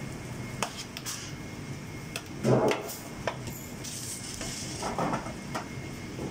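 Metal tongs and a scraper clinking and scraping on a steel sheet pan of roasted vegetables, with a few louder pan clatters, the loudest about two and a half seconds in.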